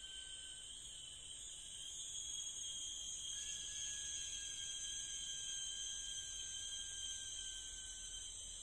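Steady high-pitched insect chorus of several continuous shrill tones, with a lower steady tone joining about three seconds in and stopping shortly before the end.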